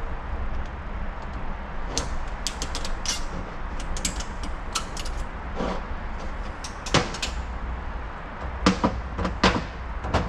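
Small metal parts of a 62TE automatic transmission's planet carrier clicking and clinking as it is pried apart by hand with a pick, with a few louder clanks near the end, over a steady low hum.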